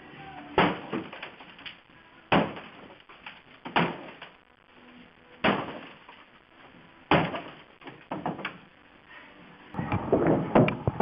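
A 12 lb sledgehammer smashing into a DJ booth: five heavy blows about one and a half seconds apart, each followed by a short rattle of debris. A few lighter knocks follow, then a dense burst of clattering near the end.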